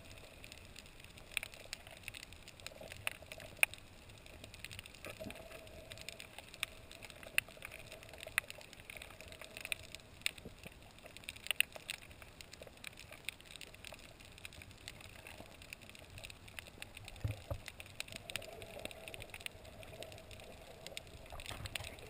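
Underwater reef ambience picked up by a submerged camera: faint muffled water noise with scattered sharp clicks and crackles, a faint hum that comes and goes, and a dull knock about three quarters of the way through.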